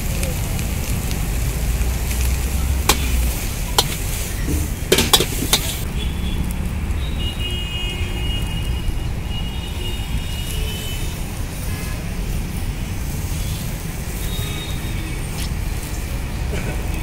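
Veg noodles stir-frying in a large steel wok over a gas burner: a steady sizzle over a low rumble, with a few sharp clangs of the steel ladle striking the wok about three to five seconds in. After about six seconds the sizzle fades to a quieter hiss.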